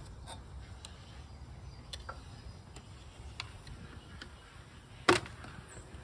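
Scattered light clicks of plastic engine-bay parts and connectors being handled and unclipped, with one sharp, loud plastic snap about five seconds in, over a faint low rumble.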